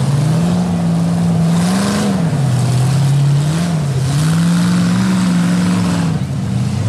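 Off-road rock bouncer buggy's engine revving hard under load as it climbs a muddy hill, its pitch rising and falling several times with the throttle.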